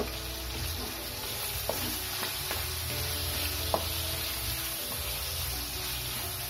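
Chicken drumsticks sizzling in hot oil in a wok while a spatula stirs them, with a few sharp clicks of the spatula against the pan.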